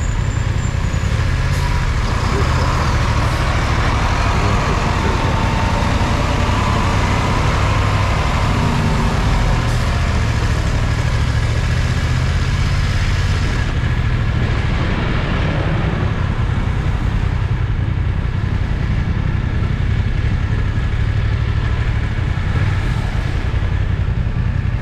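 Wind buffeting the built-in microphone of a camera on a motorcycle riding slowly through wet city traffic, with a steady heavy rumble over the motorcycle's engine and the traffic around it, including a truck alongside.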